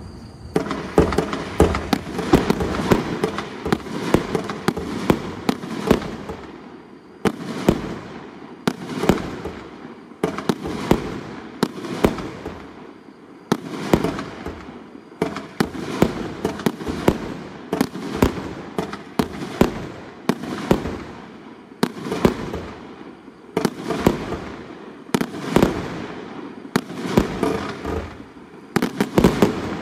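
A 1-inch, 25-shot consumer firework cake firing: a continuous run of sharp bangs from shells launching and bursting, about one or two a second, sometimes in quick clusters.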